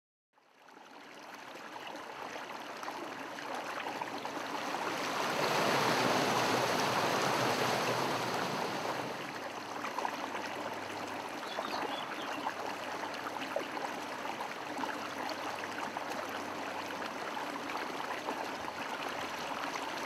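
Mountain torrent rushing steadily. It fades in over the first couple of seconds, is loudest from about five to nine seconds in, and then settles to a steady level.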